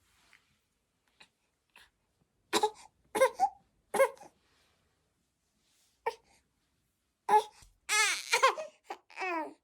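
A two-month-old baby crying in short separate cries, building near the end into longer wailing cries that rise and fall in pitch.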